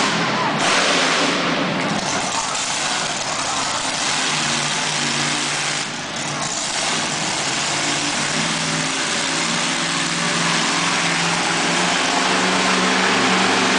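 BearFoot monster truck's engine running loud and revving, its pitch rising and falling as the truck drives and turns, heard across an indoor arena.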